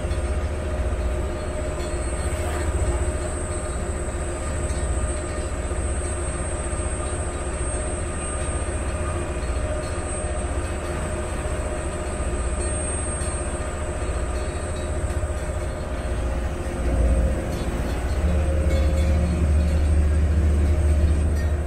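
A vaporetto water bus's engine drones steadily under way, with the hiss of its wake and wind along the hull. The low rumble grows louder in the last few seconds.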